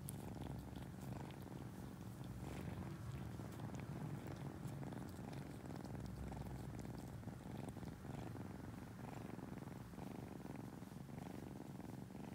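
Young tabby kitten purring steadily, close up.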